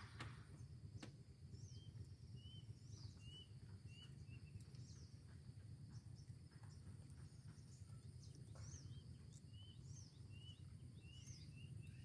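Faint outdoor ambience: a low steady rumble with small birds chirping. A run of short, even chirps comes a couple of seconds in and again in the second half, with occasional higher sweeping calls.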